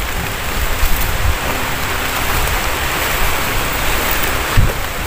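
Steady rain falling on forest foliage, an even hiss, with a couple of low thumps near the end.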